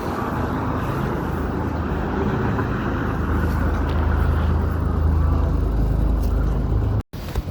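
City street traffic: a motor vehicle's engine and tyres rumbling steadily, growing louder over the second half as it passes close, with a brief dropout near the end.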